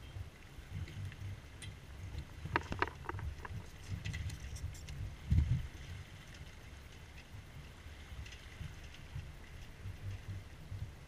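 A small sailboat under sail: an uneven low rumble of wind on the microphone and water along the hull. A few light clicks come about two and a half to three and a half seconds in, and a louder dull thump just past the middle.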